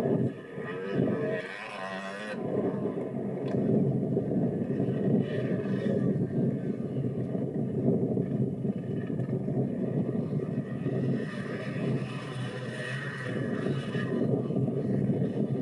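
Dirt bike engine running as the bike rides across rough ground, a steady, fairly coarse engine note heard through old camcorder audio, getting a little louder about four seconds in.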